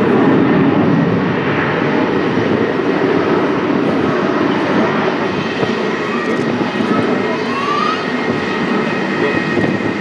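Boeing 737 jet engines powering up for the takeoff roll: a steady, heavy rumble with a thin high whine over it, easing slightly as the airliner pulls away down the runway.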